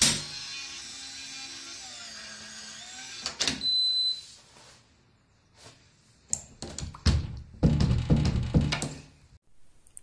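SwitchBot smart lock's motor whirring as it turns the door's thumb-turn, a steady whine that stops about three seconds in, followed by a short high beep. From about six seconds in there is a series of loud knocks and bumps.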